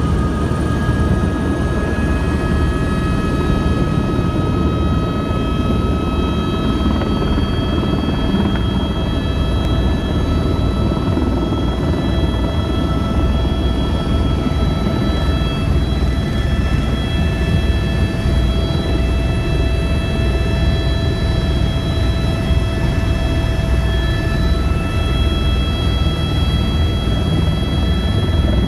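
Helicopter turbine engine and rotor running at full power through takeoff, heard from aboard: a steady, loud, deep rumble under several steady high-pitched turbine whines.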